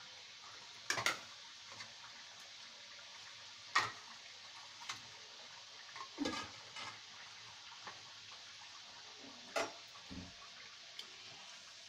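Kachoris deep-frying in a kadhai of hot oil: a steady sizzle, with four sharp clicks spaced a few seconds apart.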